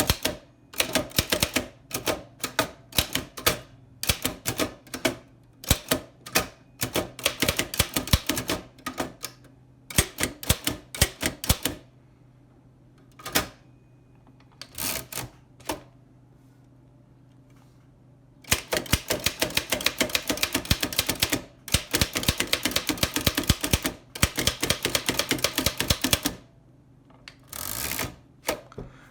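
Oliver No. 9 typewriter being typed on: sharp keystroke clacks in bursts with pauses between them, then a fast, even run of keystrokes in the second half.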